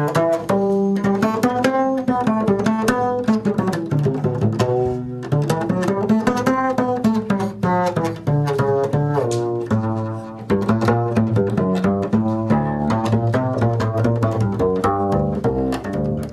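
Upright double bass played pizzicato: a fast jazz line of plucked notes, running up and down in phrases, with brief breaks about five and ten seconds in.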